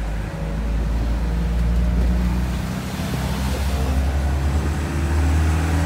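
Open-sided truck's engine running steadily as it drives along, heard from the open back, a deep hum with road and wind noise over it.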